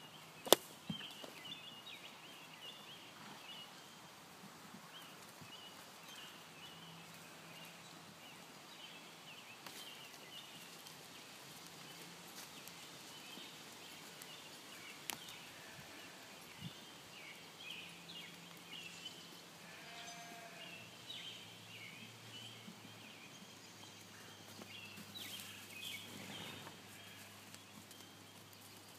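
Faint outdoor ambience with steady high chirping of small birds, a sharp knock about half a second in, and a brief animal call around twenty seconds in.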